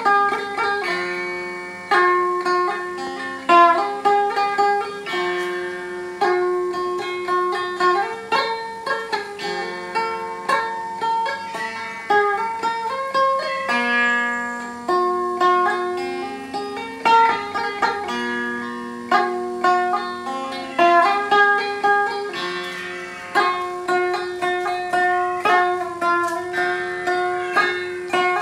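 Electric sape, the Borneo boat lute, plucked and played through a small amplifier: a continuous flowing melody of plucked notes over repeating lower ringing notes.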